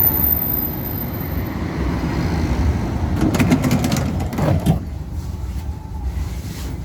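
Tram running on rails with a steady rumble, a quick series of clacks and knocks from the wheels about three seconds in, after which the running noise drops to a quieter level.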